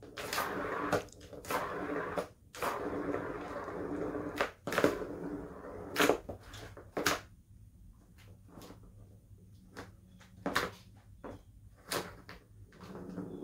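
A Siamese cat scratching the corrugated cardboard pad of a Turbo Scratcher toy: a rasping scrape through the first six seconds or so, broken by sharp clacks. After that come scattered single clacks of the plastic ball and track as the cat paws at the ball.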